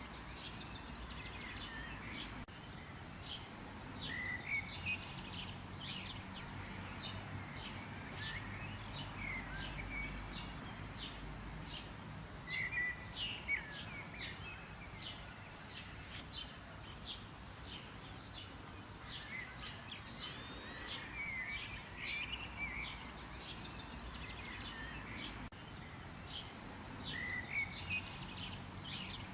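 Birds chirping and calling in nature: many short, quick high chirps and some gliding notes, several birds at once, over a steady low background rumble.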